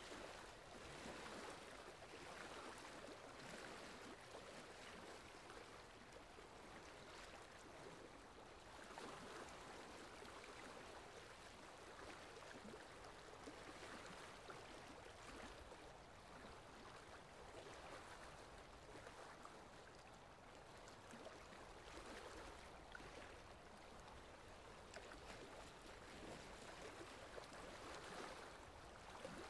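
Faint running water, like a flowing stream, swelling and easing every few seconds.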